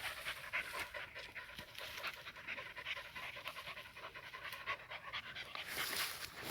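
A dog panting rapidly and steadily after a long chase.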